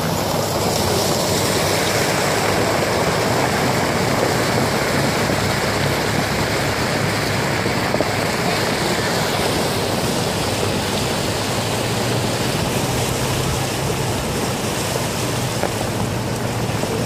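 Muddy flash-flood water rushing down a dry wadi's gravel bed as the flood arrives, a steady rushing noise.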